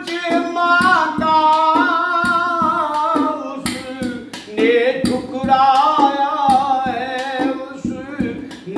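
A long, melismatic sung line over instrumental accompaniment with a steady hand-drum beat.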